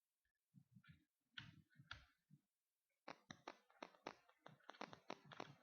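Handling noise from reassembling a laptop screen's plastic bezel and screws: a few soft low thumps, then, about halfway through, a rapid run of small sharp clicks and taps, several a second.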